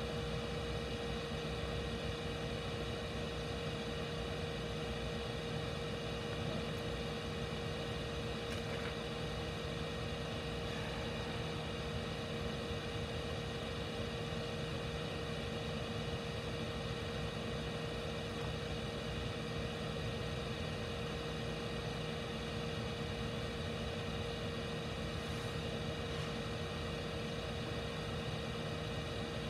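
Steady machine hum with a constant mid-pitched tone, like a fan or blower running, with a few faint ticks of small parts being handled.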